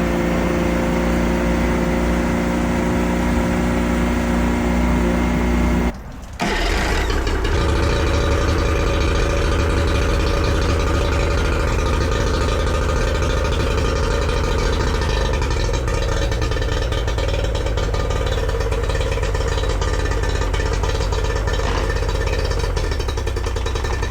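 Yamaha 40 hp two-stroke outboard running smoothly after new spark plugs and fuel lines: a steady, even idle for about six seconds, then after a brief break it runs harder and noisier to the end.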